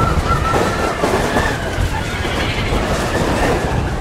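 Mine-train roller coaster running along its steel track, a steady heavy rumble and clatter of the cars, with a thin wavering squeal early on.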